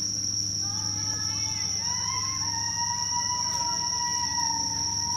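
Night insects chirring in one steady high-pitched tone, over a low hum. From about a second in, several faint, drawn-out whistling tones overlap, some gliding upward and one held for about three seconds.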